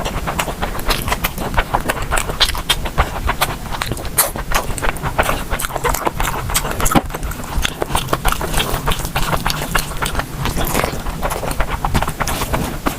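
Close-miked eating: chewing and mouth sounds, a dense, irregular run of sharp clicks and smacks.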